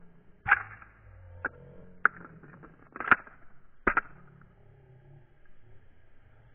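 Five short, sharp knocks or clicks spread over about three and a half seconds, the first and the last the loudest, with faint background noise between them.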